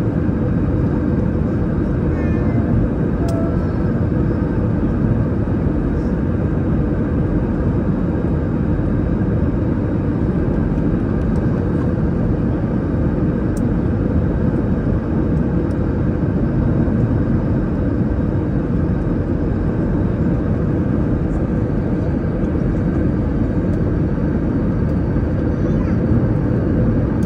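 Steady cabin noise of an Airbus A321-231 in descent, heard from a seat over the wing: an even, low roar of airflow and its two IAE V2533-A5 engines.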